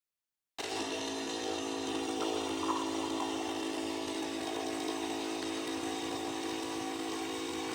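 Electric espresso machine's pump running with a steady buzz, switching on abruptly about half a second in.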